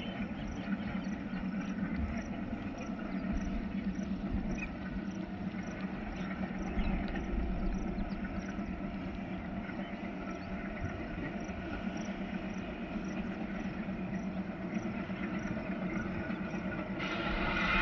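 Twin WDM3A diesel-electric locomotives with ALCO 16-cylinder engines running steadily under load as they haul the train up a gradient, a low, even drone. Near the end a louder, higher sound with several tones comes in.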